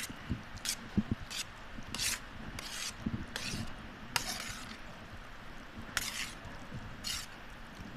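Close-miked eating of Maggi noodles: wet mouth sounds of chewing and slurping, a short crisp burst roughly every half second to second, with a longer one about four seconds in.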